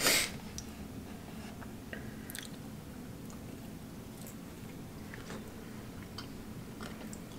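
A person biting into and chewing a soft glazed donut: faint mouth sounds and small scattered clicks over a low steady room hum. A brief loud noise comes right at the start.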